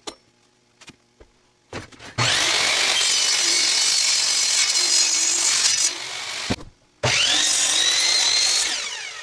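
Power tool working wood, run twice. It starts about two seconds in and runs for about four seconds, stops with a click, then starts again with a rising whine and winds down near the end.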